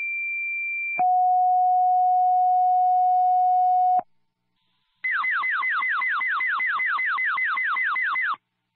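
Fire dispatch paging tones over a radio: a two-tone sequential page, a high steady tone for about a second, then a lower one for about three seconds. After a second's pause comes a rapid run of falling chirps, about five a second, alerting the fire department to a call.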